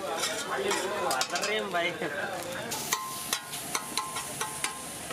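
Metal spatula scraping and striking a large iron tawa as fish and egg bhurji sizzles on it. From about three seconds in come sharp metallic clanks, about three a second, with a faint ringing tone beneath them.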